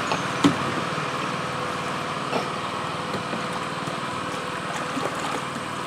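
Small boat engine running steadily under way, a dense even drone of rapid firing pulses.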